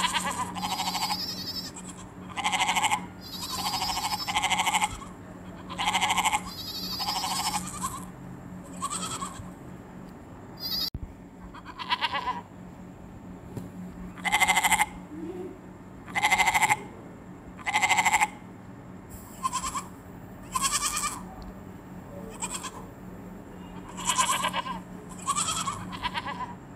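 Goats bleating over and over, short wavering bleats about every one to two seconds.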